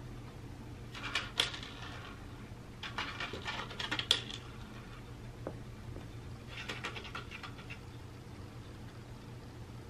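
Dry cat kibble rattling and clicking against the plastic tiers of a Catit Senses 2.0 Food Tree as a cat paws and noses at it, in three short bursts of clicks.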